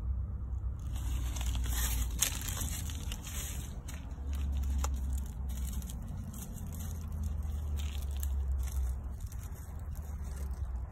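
Domestic tabby cat tearing and chewing grass close to the microphone: quick crunchy, crackling bites that keep going for most of the stretch, over a low steady rumble.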